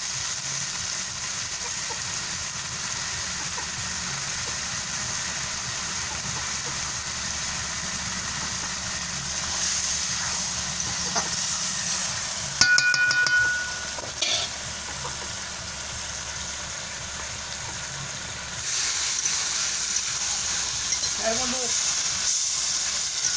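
Food sizzling as it fries in a pan, with stirring. About halfway through, a brief loud ringing clatter stands out above the steady sizzle.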